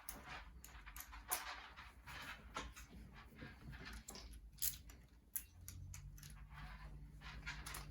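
Scattered light clicks and clinks of a flathead screwdriver being picked up and set against a rifle's stock screw.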